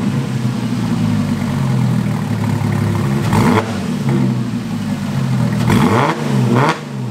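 Porsche Cayman engine running through a straight-piped exhaust, its mufflers cut off and the pipes extended out the back. It runs steadily and is blipped in short revs about three seconds in and twice more near the end.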